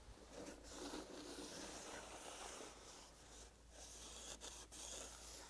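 Faint scraping and rubbing as the old gasket is taken off the gear pump's front cover and the sealing surface is cleaned, a little louder in the first half.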